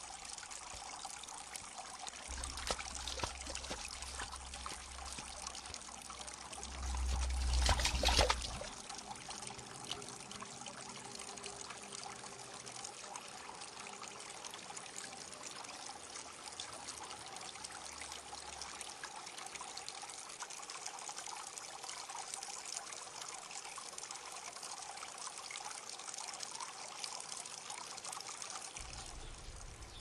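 Stream water pouring and trickling steadily over stones below a waterfall. About a quarter of the way in there is a louder burst of a second or two, with a low rumble under it.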